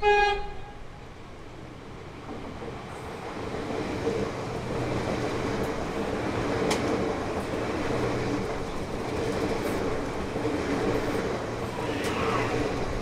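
A High Capacity Metro Train electric multiple unit sounds a short horn blast, then runs in alongside the platform. Its steady electric hum and rail noise build up over the first few seconds and stay loud as the carriages pass.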